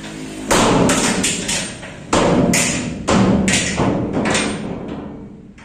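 A dozen or so loud, irregular thuds and knocks on a sheet-steel container body, each with a short metallic ring, fading out in the last second.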